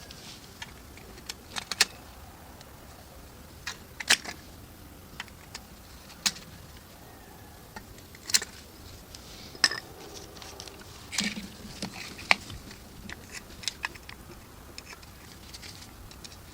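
Scattered sharp clicks and light clinks at irregular intervals, over a faint steady hiss.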